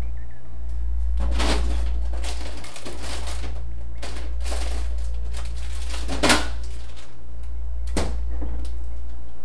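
Refrigerator door and crisper drawer being handled while packages of shredded cheese are rummaged through: irregular rustles and clatters, the loudest about six seconds in, then a sharp click about eight seconds in. A steady low hum runs underneath.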